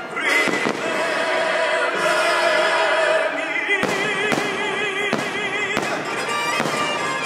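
Theme-park fireworks show: about half a dozen sharp firework bangs, a second or less apart in the second half, over loud orchestral show music with a held, wavering melody.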